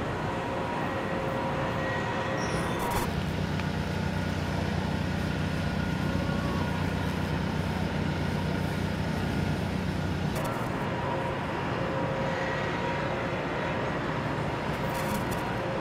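Steady flight-deck noise aboard an aircraft carrier, a constant machinery hum with a faint high whine. Its character changes abruptly about three seconds in and again about ten seconds in.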